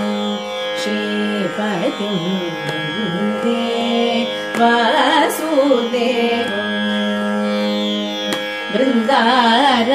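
Carnatic music in raga Sri: a melodic line full of sliding, oscillating ornaments over a steady drone.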